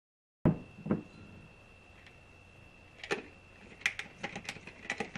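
Two knocks as a ceramic pitcher is set down on a stone countertop, then a series of sharp plastic clicks and scrapes as the screw-on lid of a Bubba kids water bottle is twisted on and tightened.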